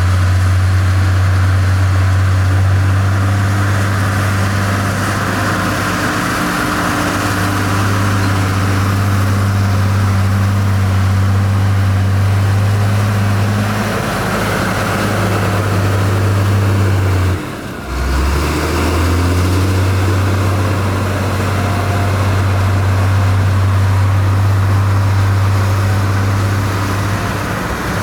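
Heavy diesel engine of construction machinery running at a steady speed, a low constant drone. About two-thirds of the way through it breaks off briefly, drops lower in pitch for a moment, then runs steady again.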